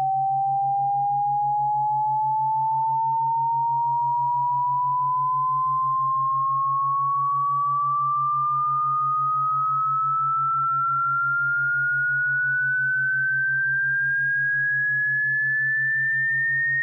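Synthesized pure electronic tone sliding slowly and steadily upward in pitch, over a quieter, rapidly pulsing low hum. It is played as a cat-repellent sound.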